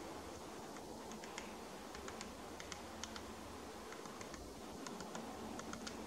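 Great spotted woodpecker pecking at tree bark: light, irregular taps, about three a second.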